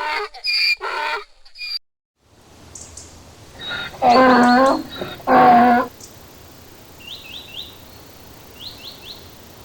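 Recorded donkey bray from a sound book: two loud drawn-out pitched calls, the first wavering and the second steady, over a farmyard background. Quick bird chirps, in runs of three, come twice near the end.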